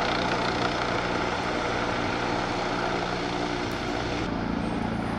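A129 Mangusta attack helicopter flying overhead: steady rotor and turbine noise with a low hum. About four seconds in, the hiss thins out and the hum's tone shifts.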